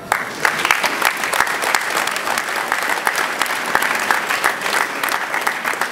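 Audience applauding: many hands clapping at once, starting suddenly and keeping on steadily.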